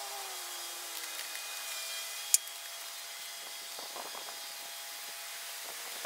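Metal parts of a Weber Q gas grill's valve assembly being handled and fitted back into place: one sharp click a little over two seconds in, and light scraping around four seconds in, over a faint steady hiss.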